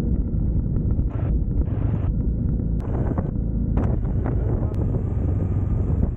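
Trail motorcycle engine running while riding over a rough stony track, with wind buffeting the microphone and a few short knocks from the ground.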